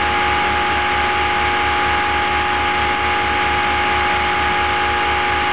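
Home-built Orbo-style magnet motor running with its pulsed coils, driving a small fan as a load: a steady electrical hum and whine over a low throb that pulses about five times a second.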